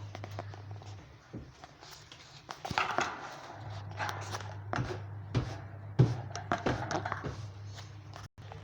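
Pet budgies moving about their cage: scattered clicks, taps and short chirps over a steady low hum.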